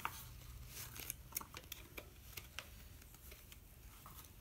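Faint crinkling and short light clicks of hands handling an opened stuffed toy bear, its plastic-wrapped stuffing and wiring; the clicks are thickest in the first couple of seconds and thin out after.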